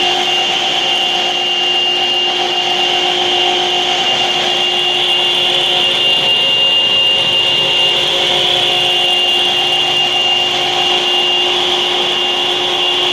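Granite-cutting saw running steadily: a constant high whine over a gritty rubbing hiss, with no change in speed or load.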